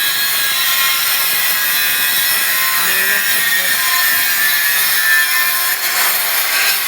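A power tool running steadily under load, giving a continuous high whine over a coarse cutting or grinding noise.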